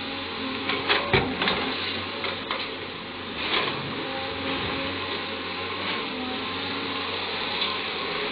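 CAT 320D hydraulic excavator's diesel engine running steadily under load while the bucket digs into coal, with a few sharp knocks and scrapes of bucket and coal about a second in and again near the middle.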